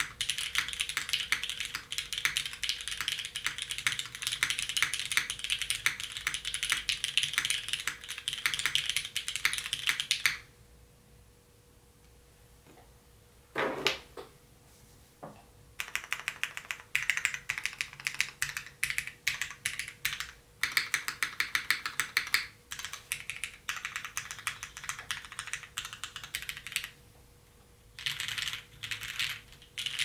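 Typing on a Bakeneko60 custom mechanical keyboard with lubed Cherry MX Hyperglide Black linear switches, an aluminum plate and GMK keycaps: a fast, dense run of clacks. About ten seconds in the typing stops for a few seconds, broken by a couple of lone keystrokes, then resumes in bursts with a brief pause near the end.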